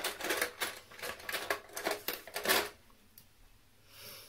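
Makeup items clicking and clattering against each other as they are rummaged through in search of a brow pencil. The rapid clatter stops about two and a half seconds in.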